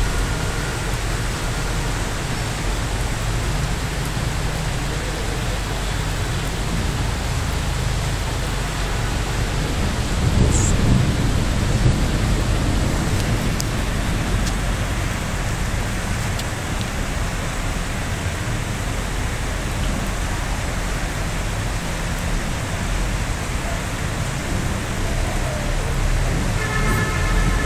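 Rain falling steadily, with a low rumble of thunder swelling about ten seconds in and dying away within a couple of seconds.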